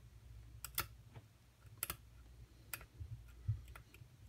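Light metallic clicks and ticks of a lock pick working the pins of a pin-tumbler challenge lock, about five sharp separate clicks spread unevenly over the few seconds.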